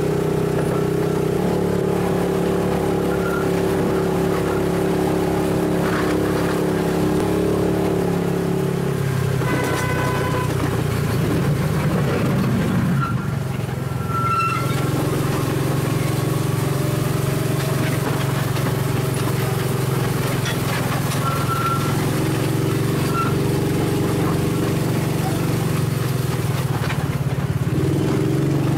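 Wulai tourist trolley running along its narrow-gauge track, heard from inside a car: a steady low drone from the trolley and its wheels, with a few short high wheel squeals on the tight curves.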